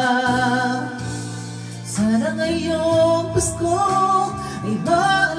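A man singing into a handheld microphone over a backing track, holding long notes that waver slightly in pitch, with a new phrase starting about two seconds in.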